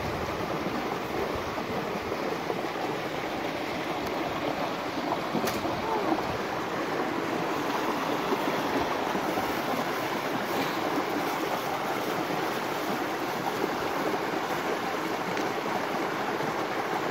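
A steady rushing noise, with a faint crack or two from small fatwood kindling burning, one about five seconds in.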